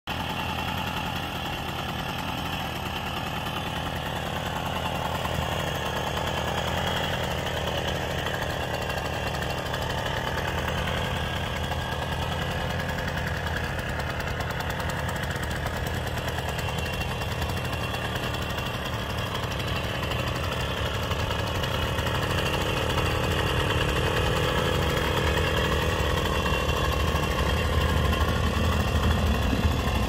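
1980 Kreidler Flory 50 cc two-stroke moped engine idling steadily on its stand, getting a little louder near the end.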